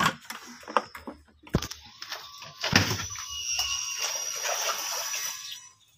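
A few sharp knocks and clatters, then a steady hissing rush lasting about three seconds that cuts off just before the end.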